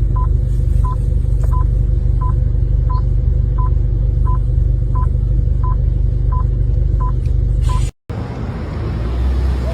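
Steady low engine-like rumble with a short, high electronic beep repeating evenly about every 0.7 seconds, cut off abruptly near the end.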